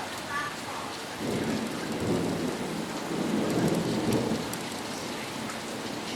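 Steady rain, with a long low roll of thunder that builds from about a second in and fades out around four and a half seconds.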